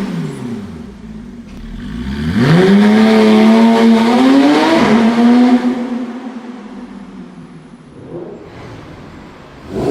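Supercar engine accelerating hard: its note sweeps quickly up, holds high and loud for about three seconds, then fades away as the car drives off.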